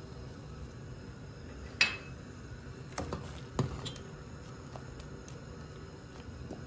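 A spoon knocking against a cooking pot while stirring: one sharp ringing clink about two seconds in, the loudest, then a few softer knocks a second or so later.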